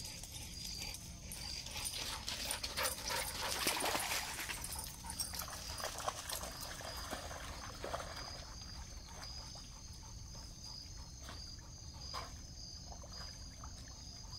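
A dog splashing as it wades into shallow water and swims, loudest a few seconds in, then quieter paddling. Crickets chirp steadily in the background.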